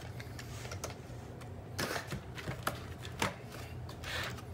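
Hard plastic clicks and knocks as a Shark Ion robot vacuum's drive wheel module is pressed and worked into its tight housing in the chassis: a few sharp clicks about two to three seconds in, then a brief scrape near the end.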